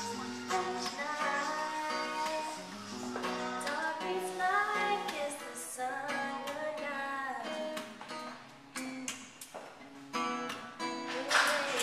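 Acoustic guitar strummed in chords, with a girl's voice singing along; the singing drops out about eight seconds in while the strumming continues.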